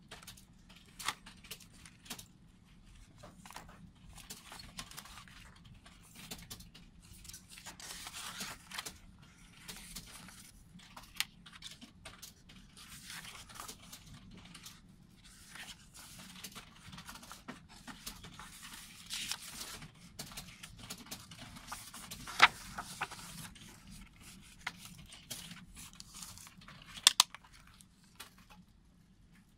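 A plastic CD jewel case and its paper booklet being handled: paper rustling and sliding as pages are turned, with scattered sharp clicks and taps of the plastic case, the loudest two about three-quarters of the way through and near the end.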